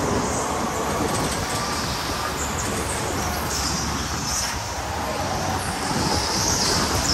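Electric go-kart driving hard on an indoor track: a faint motor whine over steady tyre and wind noise, with short high squeals now and then as it takes the corners.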